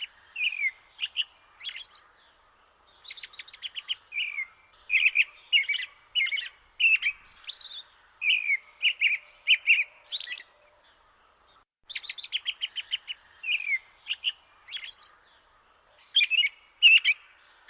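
A songbird singing repeated phrases, each opening with a rapid run of short, clipped notes and going on into a string of separate slurred whistled chirps; a new phrase starts about three seconds in and again about twelve seconds in. A faint steady background hiss lies beneath.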